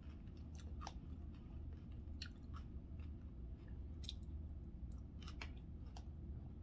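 A person chewing a mouthful of chicken salad, faint, with small scattered crunches and mouth clicks every second or so over a low steady hum.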